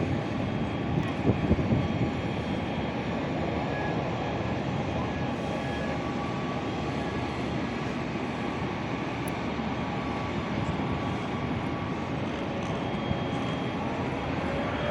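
Aeroplane engine noise, a steady even rush with a few brief knocks in the first couple of seconds.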